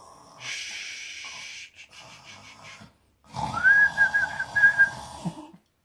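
A sleeping man snoring. First comes a long hissing breath, then a louder snore with a wavering whistle on it.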